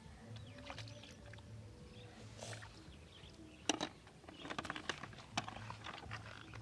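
A sharp knock a little past halfway, then about two seconds of clattering and rustling: a white plastic bucket being handled, with the catch dropped into it.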